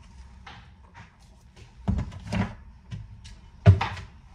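Kitchen handling knocks, then one loud thump near the end: a kitchen cupboard door being shut.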